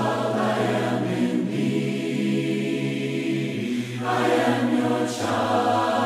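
A choir singing a hymn in four-part harmony, holding one long chord in the middle before moving on to new notes.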